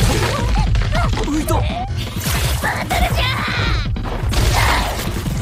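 Anime fight-scene soundtrack: a fast run of hits and thuds, with short gliding cries in the first couple of seconds and stretches of rushing noise later, over background music.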